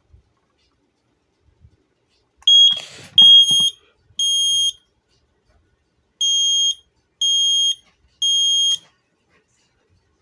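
Smoke alarm sounding in test: two sets of three loud, high-pitched beeps, each about half a second long and a second apart, in the temporal-three evacuation pattern. A short rattle of handling noise comes with the first beeps.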